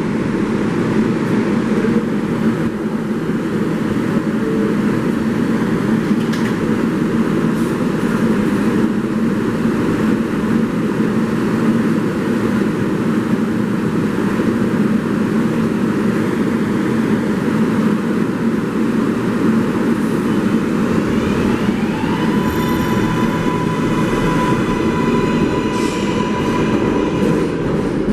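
Subway train running through a station on the New York 7 line, with a steady loud rumble of wheels on rail. About 21 seconds in, a high wheel squeal sets in and holds.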